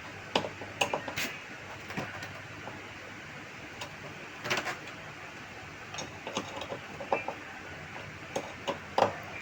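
Irregular clicks and knocks from hands handling hard plastic parts of a monitor and its stand, over a faint steady low hum.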